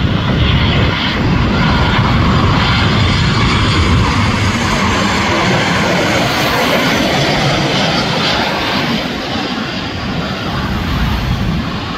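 Jet engines of a Boeing 737 airliner on low final approach passing close by: a loud, steady rush and rumble of jet noise that eases slightly near the end as the aircraft moves away towards the runway.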